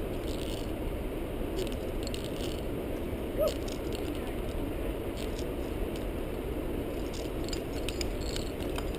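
Climbing hardware clinking and rattling, with scattered light metallic clicks at irregular intervals as carabiners and gear knock together, over a steady low rush.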